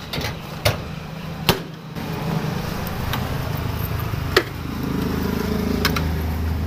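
Suzuki Raider R150 carb's small single-cylinder four-stroke engine starting up about two seconds in and idling steadily, swelling slightly about five seconds in. A few sharp clicks before and during, from handling the bike's latches and controls.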